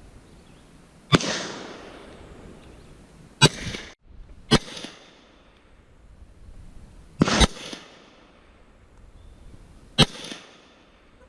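Firearm shots at a range: about six sharp gunshots at irregular intervals, two of them close together in the middle, each trailing off in a brief echo.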